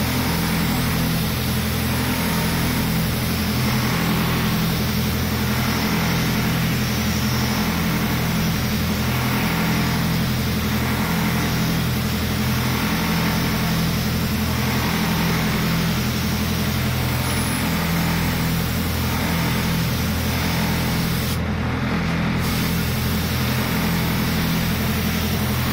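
A gravity-feed spray gun hissing as it sprays gold spray-on chrome coating, over a steady low motor hum.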